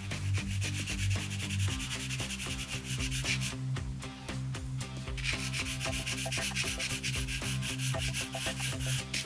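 Pastel pencil scratching in short strokes across textured pastel paper, pausing briefly near the middle. Background music with steady low notes plays underneath.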